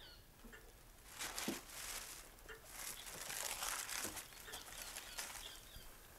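Faint rustling and crinkling as a length of fine net lace with appliquéd butterflies is handled and unfolded by hand, coming and going in soft swells over a few seconds.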